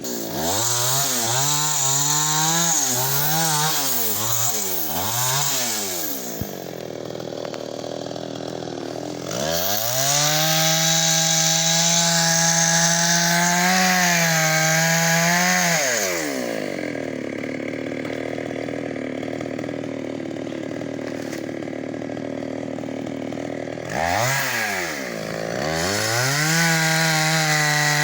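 Chainsaw engine revved up and down several times, then settling to idle. It is then held at full speed for about six seconds while cutting into a tree, drops back to idle, and revs again to full speed near the end.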